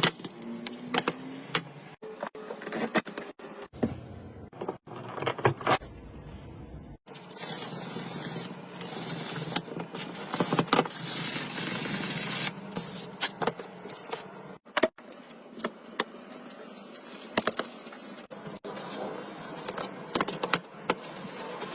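Woodworking hand tools clicking, knocking and rattling, with a steady scraping hiss for about five seconds in the middle.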